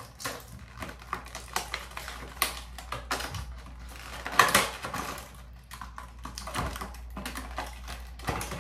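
Irregular clicks, taps and rustles of small skincare items and their packaging being handled, with a louder knock about four and a half seconds in.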